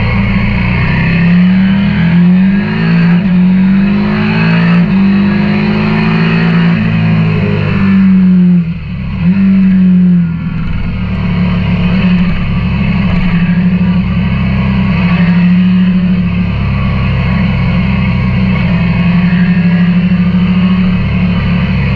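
KTM 890 Duke R's parallel-twin engine under way, revving up and stepping down in pitch several times in the first few seconds as it shifts up through the gears. The throttle closes briefly about nine seconds in, then the engine pulls again and runs on more steadily.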